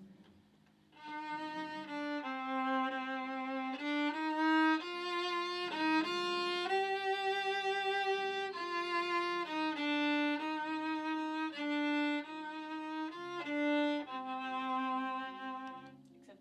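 Violin played solo: a slow passage of sustained bowed notes in the instrument's lower range, each held about a second, starting about a second in and stopping just before the end.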